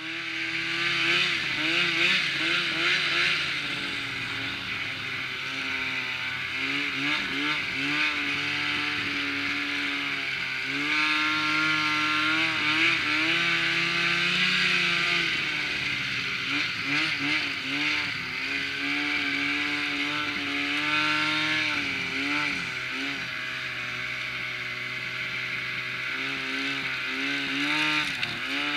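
Arctic Cat snowmobile engine running under way, its pitch rising and falling again and again as the throttle is opened and eased, with a steady rushing hiss underneath.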